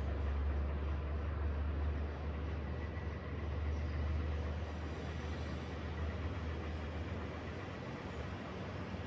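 Steady outdoor balcony ambience: a constant low rumble under an even rushing wash of noise, with no distinct events.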